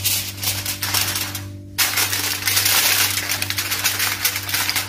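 Sheet of aluminium foil crinkling and crackling as it is handled, dying down about a second and a half in, then starting up again more loudly just after.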